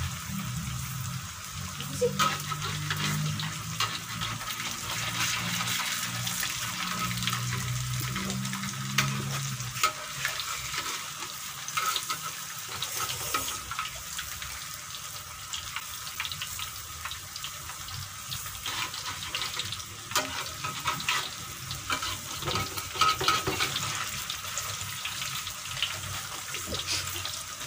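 Peyek batter deep-frying in hot oil in an aluminium wok: a steady sizzle with many small crackles, and now and then a click of the metal spatula against the wok. A low hum sounds underneath for the first ten seconds or so, then stops.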